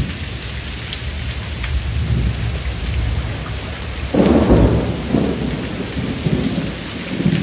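Heavy rain falling steadily in a thunderstorm, with a low rumble of thunder underneath that swells loudest about four seconds in.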